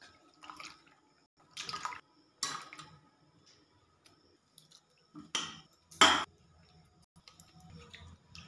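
Tamarind water sloshing and splashing in a steel bowl as a hand squeezes and stirs the pulp, in separate short splashes with pauses between, the loudest about six seconds in.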